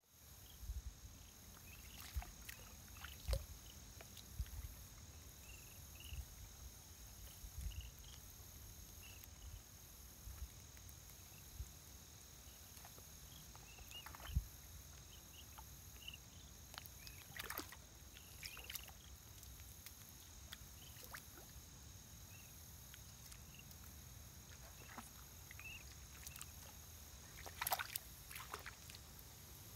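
Juvenile whooping cranes wading and foraging in shallow water: soft sloshing and splashing, scattered sharp clicks and rustles, and faint short high chirps throughout.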